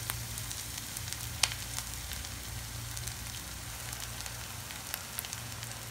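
Buckwheat-flour potato pakoras frying in hot ghee in a shallow pan on a medium gas flame: a steady sizzle with a few sharp pops.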